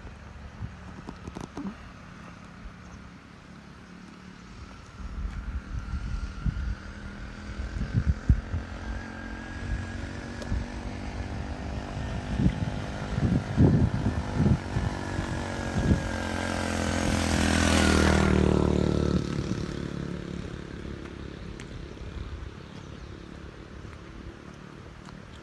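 A motor vehicle approaches and drives past, its engine growing louder to a peak about two-thirds of the way through, its pitch dropping as it passes, then fading away. Low rumbling thumps come and go before it arrives.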